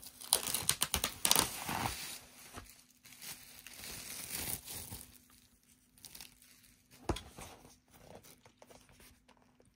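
Plastic shrink wrap being torn and peeled off a vinyl LP sleeve, crinkling and crackling, loudest in the first two seconds and again around the middle, then a few scattered crinkles and a single sharp tap about seven seconds in.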